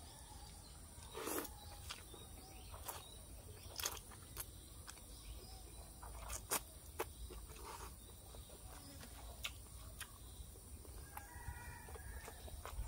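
Close-miked eating of rice noodles: faint slurping and chewing with scattered short clicks of utensils and mouth sounds, over a steady faint high hum.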